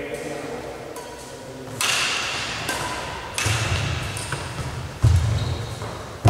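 Badminton rally: three sharp racket strikes on the shuttlecock, about a second and a half apart, each ringing on in the reverberant hall, the later two with heavy thuds of feet on the wooden court.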